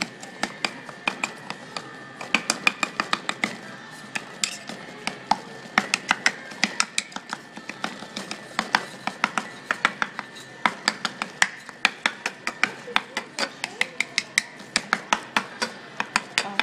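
Metal spoon and knife chopping and mashing guacamole in a stone molcajete: quick, irregular clacks of metal on stone, several a second.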